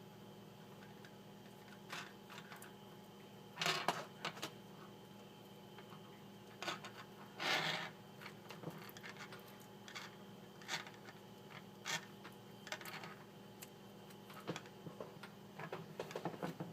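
Hands taping a spliced charger-cord wire with electrical tape: scattered small clicks and handling noises, with two short louder rasping bursts about 4 and 7 seconds in, over a faint steady hum.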